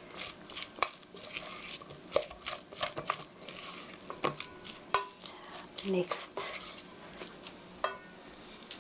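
Wooden spatula stirring flour- and egg-coated onion slices in a stainless steel mixing bowl: irregular scrapes and clicks of the spatula against the bowl, dying down near the end.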